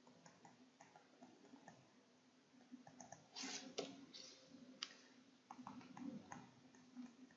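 Faint, scattered clicks near silence: the buttons of a Casio scientific calculator being pressed, with a few light taps from handwriting.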